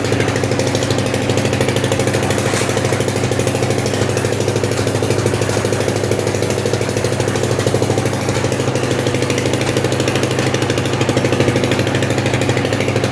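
Concrete mixer's engine running steadily with a rapid, even chugging.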